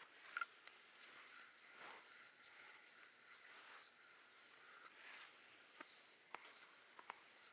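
Faint, soft rustling and brushing of hands or a tool working over hair and skin in a massage, with a few small ticks near the end.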